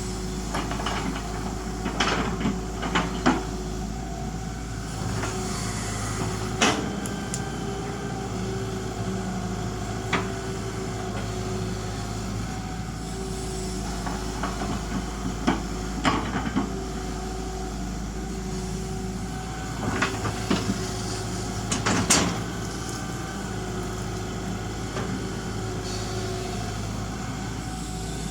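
Excavator's diesel engine running steadily under work, with sharp metallic clanks now and then from the bucket and arm, loudest about two, six, sixteen and twenty-two seconds in.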